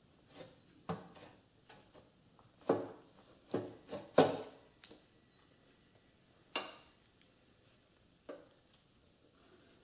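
A handful of separate metallic clunks and knocks, loudest about four seconds in, as a small motorcycle engine is nudged backwards in its frame and a long mounting bolt and screwdriver are picked up.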